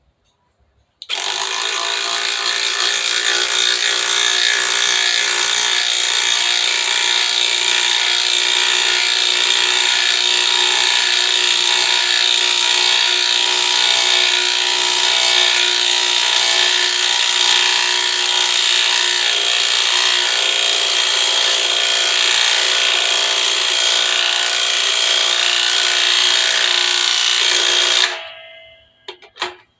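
Cordless impact driver running with its hammer mechanism rattling steadily for nearly half a minute, starting about a second in and stopping abruptly near the end.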